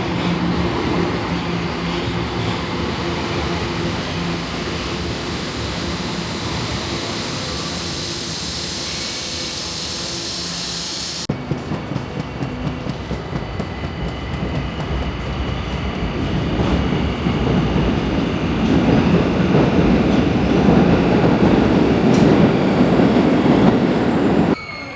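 Electric commuter train running: a steady motor hum with a rising high hiss, then, after a cut, the rhythmic clacking of wheels over rail joints, growing louder over the following seconds.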